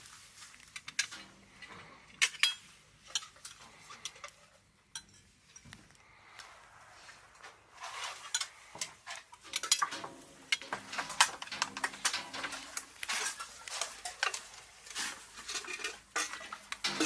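Metal dishes, pots and utensils clinking and clattering in scattered sharp clanks, which grow busier about halfway through.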